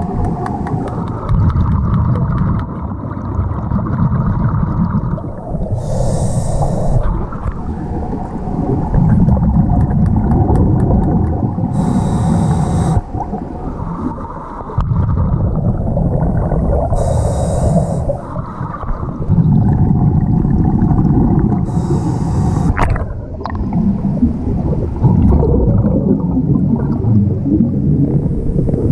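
Scuba diver breathing through a regulator underwater: a short hissing inhale every five to six seconds, each followed by several seconds of low, rumbling exhaust bubbles.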